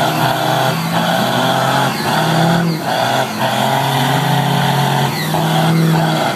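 Pickup truck doing a burnout: the engine is held at high revs while the rear tyres spin and squeal on the pavement. The engine note and the tyre noise dip briefly every second or so.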